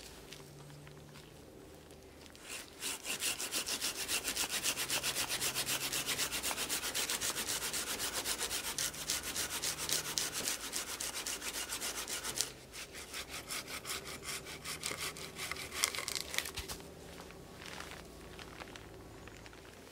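Hand saw cutting through a dead birch log with quick back-and-forth strokes. About halfway through the strokes turn slower and weaker, and they stop as the cut-off round comes free.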